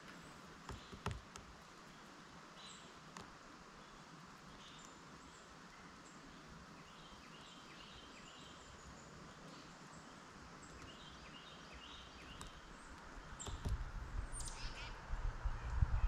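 Faint outdoor ambience with short, high chirping calls of small birds scattered throughout and a few clicks about a second in. Wind buffets the microphone with a low rumble that builds near the end.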